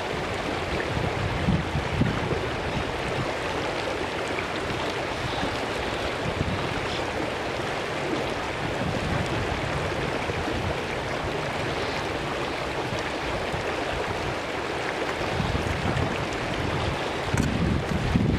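Shallow stream rushing steadily over rocks and stones, with occasional low rumbles underneath.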